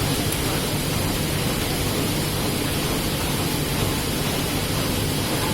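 Heidelberg Speedmaster SM 72 sheet-fed offset press running steadily in production, a dense, even mechanical noise with a low hum underneath.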